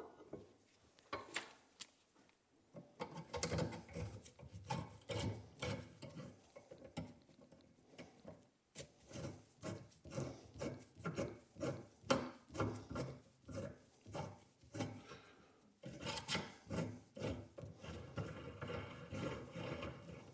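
Hand tool scraping metal on a Volvo 142 door hinge, worked back and forth in rhythmic strokes about one or two a second, with a short pause about two seconds in.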